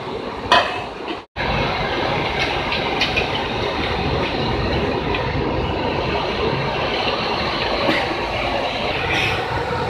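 A short knock of a metal pot near the start. After a brief break, the steady rushing noise of an LPG gas burner heating a basin of milk.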